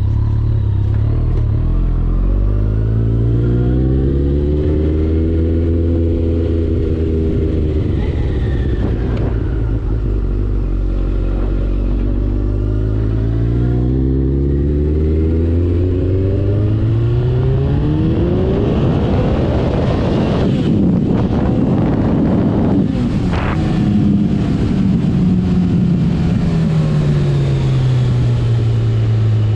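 2012 Kawasaki ZX-14R's inline-four engine through a Two Brothers Black Series exhaust, its pitch rising and falling over several seconds at a time. About two-thirds in it revs up hard, with a few sharp breaks in the sound, then winds back down near the end.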